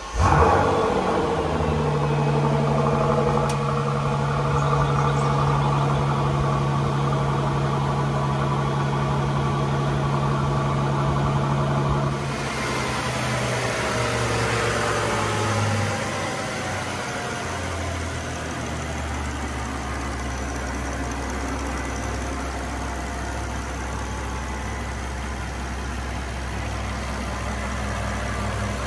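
Bentley Flying Spur's 6.0-litre twin-turbo W12 starting up with a brief rev flare, then idling fast and steady. Heard from under the open bonnet after about twelve seconds, its idle drops over a few seconds to a lower, steady idle.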